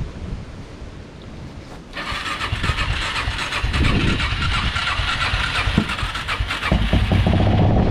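Quad engine cranking for about five seconds, then catching near the end and settling into a steady idle.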